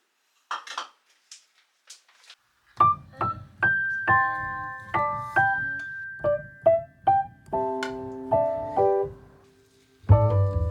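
Background music: a piano melody of single and chorded notes that starts about three seconds in, pauses briefly near the end, then comes back fuller with a low bass line. A few faint small clicks come before the music.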